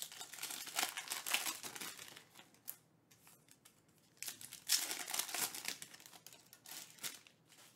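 Foil wrapper of a 2022 Panini Elite Extra Edition baseball card pack being torn open and crinkled by hand. There are two stretches of rustling, the second starting about four seconds in.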